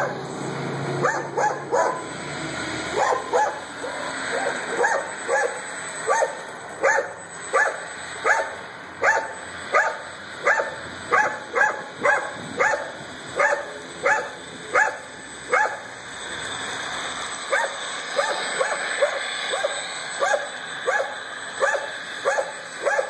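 A dog barking over and over, about one to two barks a second, with a short pause about two-thirds of the way through.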